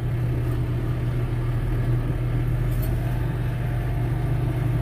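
Tractor engine running steadily with a constant low hum, heard from the operator's seat while the tractor creeps forward pushing a loader-mounted snow-plow blade.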